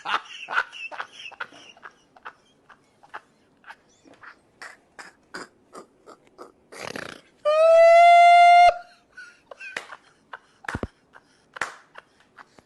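A man's mouth noises: scattered soft clicks and lip smacks, with a short breathy rush about seven seconds in. This is followed by a loud, high, steady tone lasting just over a second, which rises slightly at its start.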